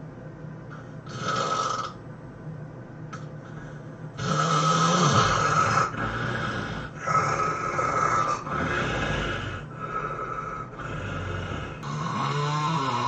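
A sleeping person snoring heavily: a string of about eight snores in quick succession, each a second or two long, the loudest about four seconds in.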